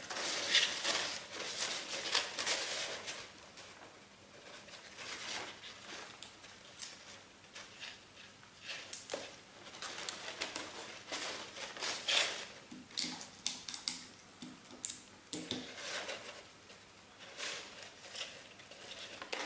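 Green crepe paper rustling and crinkling as hands handle it and tape it onto a paper cone, with irregular small crackles and clicks.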